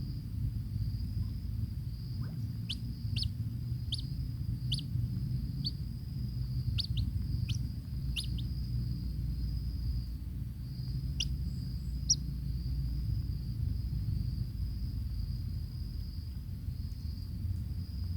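A bird giving short, sharp chirps, about a dozen in quick succession and then two more about halfway through, over a steady high-pitched drone and a low rumble.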